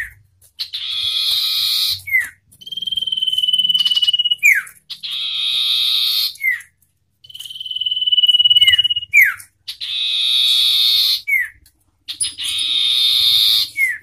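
Common iora (sirtu) singing loud repeated phrases about every two seconds, alternating a harsh buzzy trill with a long steady whistle, each phrase ending in a short falling note.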